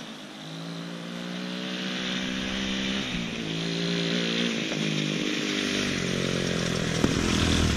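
200 cc dirt bike engine revving under way, its pitch climbing, dropping about three seconds in and again near six seconds, and growing steadily louder.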